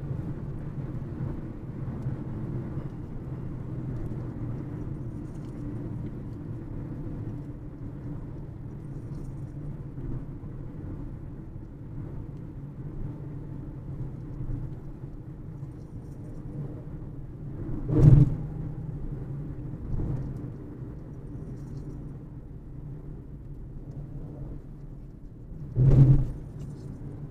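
Peugeot 208 cruising on the highway at about 110 km/h, heard from inside the car: a steady low drone of engine and tyre noise. Two sharp thumps stand out, one about two-thirds of the way through and one near the end, with a smaller knock in between.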